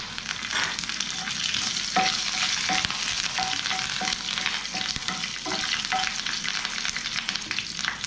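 Curry leaves, dried red chillies and black mustard seeds sizzling and crackling in hot oil in a nonstick pan, stirred with a wooden spatula that scrapes the pan now and then. This is a tadka (tempering) frying on with the gas just switched off.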